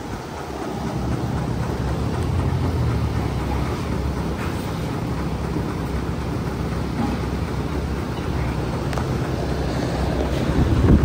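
A steady low rumble of a vehicle running close by, getting louder about a second in and peaking near the end.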